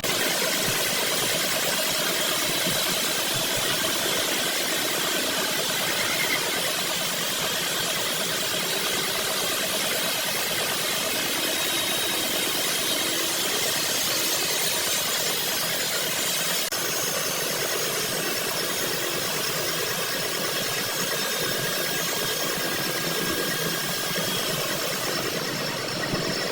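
Workshop machinery running steadily: a constant mechanical hiss with a faint, steady high whine.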